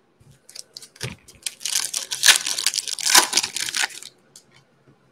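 Foil wrapper of a Panini Mosaic basketball card pack being torn open and crinkled by hand: a few light rustles, then a dense crackling that lasts about two and a half seconds and stops.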